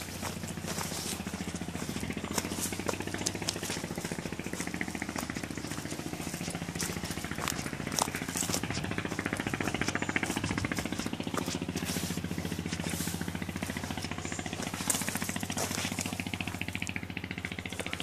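A small engine running steadily with a fast, even pulsing beat as it travels a rough forest trail, with scattered sharp clicks and snaps over it.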